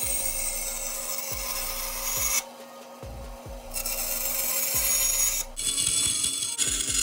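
Vertical band saw cutting through a flat aluminum bracket plate to round off its ends, the blade hissing in the metal. The cut stops for about a second and a half midway, then starts again.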